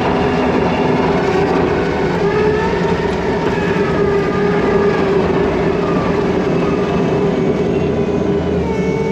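Kubota skid steer's diesel engine running steadily, with fainter whining tones that drift slightly up and down in pitch.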